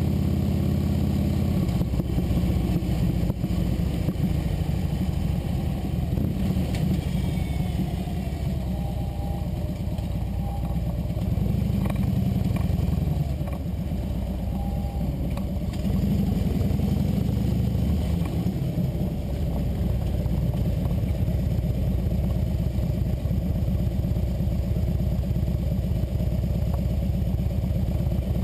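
Motorcycle engine running on the move, its note rising and falling several times, over a steady rush of wind noise.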